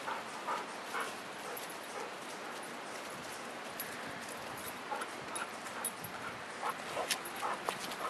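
Dogs at play giving short, high barks now and then, more of them near the end, with a couple of sharp taps among them.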